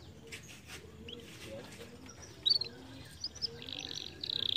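Canary singing: a few short, separate chirps, then a fast rattling trill that starts about three and a half seconds in and is louder than the chirps.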